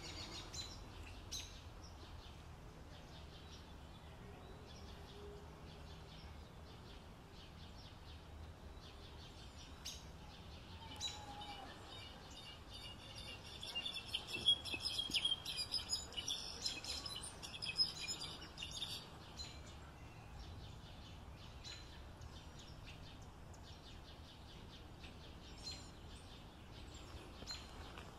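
European goldfinch singing a rapid, tinkling twitter of high notes, fuller and louder for several seconds midway, with fainter twittering before and after.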